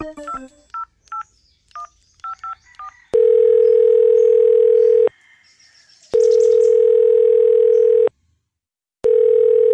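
A phone call's ringing tone as heard by the caller: after a few short high beeps, a steady buzzing tone sounds three times, each about two seconds long with a second's pause between rings, while the call waits to be answered.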